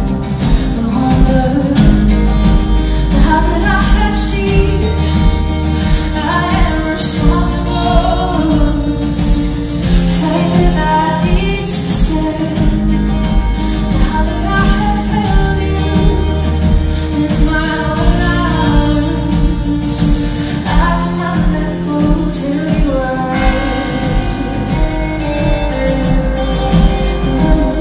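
A live band playing a song: a woman singing lead over acoustic guitar, with electric guitar, bass, keyboard and drums, recorded from the audience on a phone's microphone.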